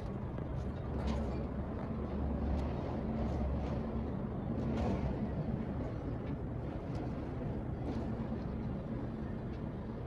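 A vehicle engine idling with a steady low hum under the rush of wind.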